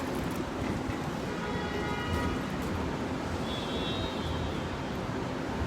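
Steady outdoor rumble of passing road traffic, with faint thin tones rising above it twice.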